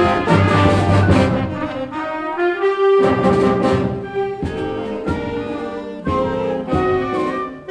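High school concert band playing, with brass to the fore: held chords in short phrases, each starting on a fresh attack.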